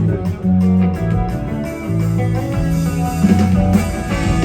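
Live rock band playing an instrumental passage between vocal lines: electric guitar over held bass notes, with a steady drum beat.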